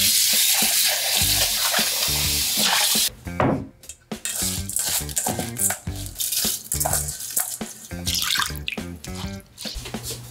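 Background music, with cooking sounds over it. For about the first three seconds there is a loud, steady rushing hiss, like water running or food frying, which cuts off suddenly. After that come scattered light clicks and knocks of kitchen work.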